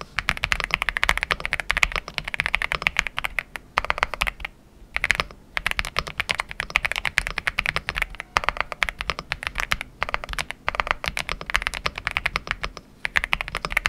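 Typing test on an Aula F99 gasket-mounted mechanical keyboard with linear switches and several layers of sound-dampening foam: a fast, dense run of keystrokes, very dampened, with a few brief pauses, the longest about five seconds in.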